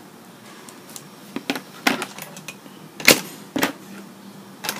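Small scissors snipping off the excess of a stiff metallic wired ribbon, with crinkling as the ribbon is handled: about six sharp clicks over a few seconds, the loudest about three seconds in.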